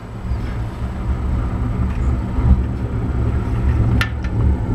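Homemade wood gasifier boiler firing: a steady low rumble of the syngas flame in the secondary burn chamber and the combustion-air blowers running, with a sharp click about four seconds in. The secondary burn is lit with the primary air open, a state in which the owner finds it soon goes out.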